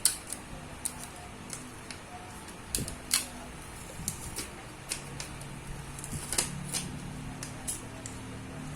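Small sharp clicks and taps of laptop parts and tools being handled during disassembly, irregular and spaced out, with the loudest right at the start. A low steady hum comes in about five seconds in.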